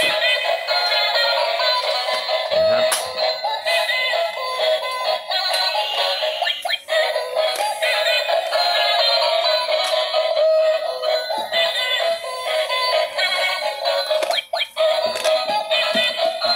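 Battery-powered bump-and-go toy car playing a tinny electronic tune with synthesized singing through its small built-in speaker, with a few short clicks along the way.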